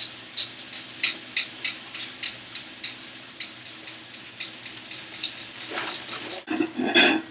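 Rapid sharp clicks, about three a second, over a faint steady hum, with a brief rush of noise near the end.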